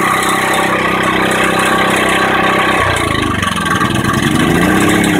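Small 1200-watt portable gasoline generator engine running steadily, then stumbling about three seconds in as the choke is taken off, its speed sagging and then climbing back up. The cold engine will not yet run without choke.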